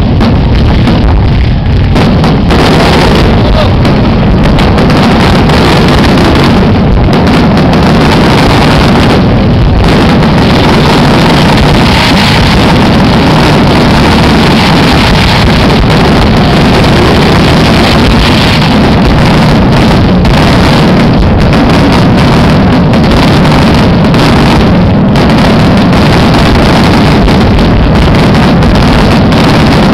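Aerial fireworks bursting in a dense barrage, the booms and crackles running together into one continuous loud rumble that overloads the camera's microphone.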